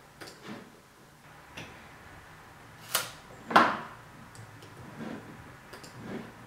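Scattered light clicks and taps from handling things at a computer desk, with two louder sharp knocks about three and three and a half seconds in.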